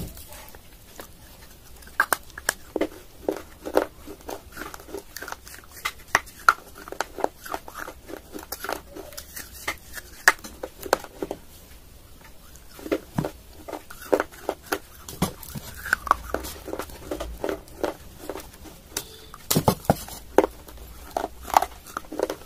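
Close-up crunching and chewing of baked clay: a thick clay saucer being bitten and its pieces chewed, in many irregular sharp crunches with a brief lull about halfway through.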